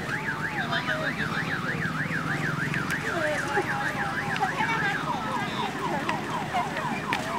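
Electronic siren warbling fast between a high and a low pitch, about four times a second. About five seconds in it switches to quick falling sweeps, repeated several times a second.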